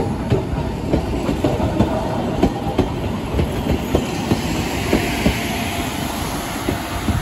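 Narrow-gauge electric train with nose-suspended (tsurikake) traction motors running past over a steady rumble, its wheels clacking over the rail joints about twice a second.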